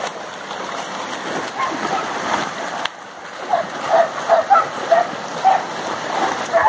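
Muddy stream water rushing while several dogs splash through the shallows chasing fish. In the second half comes a run of short, repeated barks, the loudest sounds.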